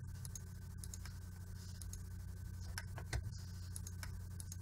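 A few faint, scattered computer mouse clicks, the strongest a little after three seconds in, over a steady low electrical hum.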